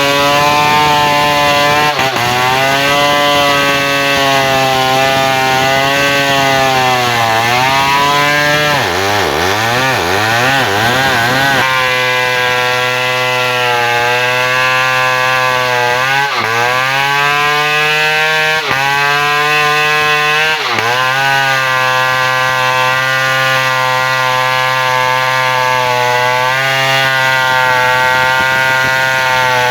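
Two-stroke chainsaw running at high speed through the whole stretch. Its pitch sags several times as the chain bites into wood and the engine comes under load, then recovers. About nine to twelve seconds in, the pitch wavers up and down.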